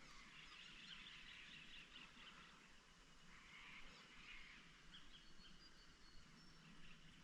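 Near silence: faint outdoor ambience with distant birds calling.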